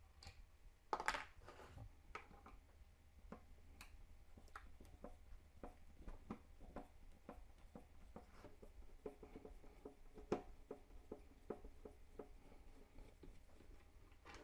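Faint clicks and light scraping of a screwdriver turning out the screws of a Fluke 87V multimeter's plastic back case. There is a louder rustle about a second in and a closer run of small ticks in the second half.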